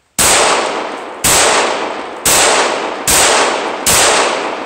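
Glock 17 9mm pistol fired five times in slow succession, about a shot a second, each loud shot trailing off in a long echo.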